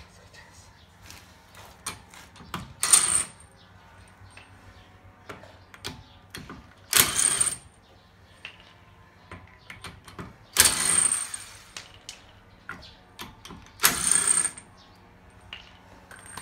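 Cordless impact wrench hammering four times in short bursts of about a second each, spinning the lug nuts off a car wheel, with light clicks between the bursts.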